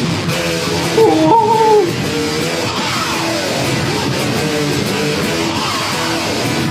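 Rock music with an electric-guitar sound, lead notes bending up and down in pitch and loudest about a second in.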